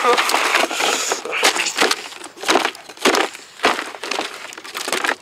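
A rapid run of sharp cracks and crashing, splintering impacts, about a dozen in all, thinning out toward the end.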